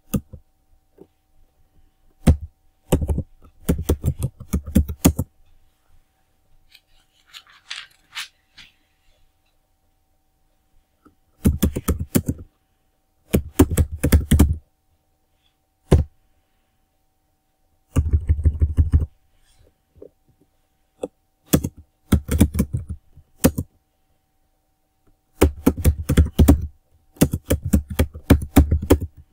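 Typing on a computer keyboard: bursts of rapid key clicks lasting a second or a few seconds each, separated by pauses of a few seconds.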